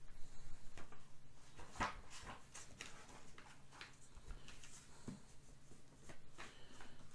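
A book being handled: a string of rustles and light knocks as it is swung down, closed and put aside, the strongest knock about two seconds in.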